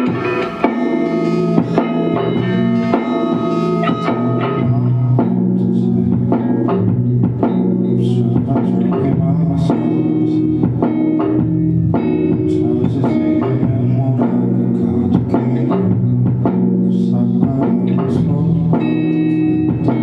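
Live rock band playing: electric guitar chords over bass guitar and a drum kit keeping a steady beat.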